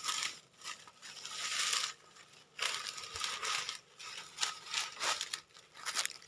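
Irregular rustling and crunching noise in short bursts that come and go every second or so.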